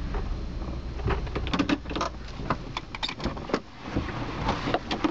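A car in motion, a steady low rumble with a run of clicks and knocks, cutting off suddenly at the end.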